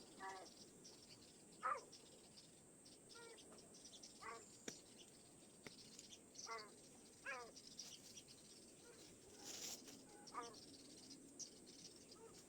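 Faint, repeated meows of a domestic cat stuck high in a tree, about ten short calls roughly a second apart: distress calls of a cat that cannot get down.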